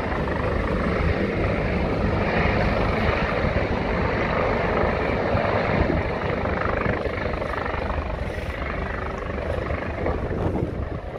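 Yellow rescue helicopter in flight over the water, a steady rotor and turbine noise that grows somewhat fainter over the second half as it moves away.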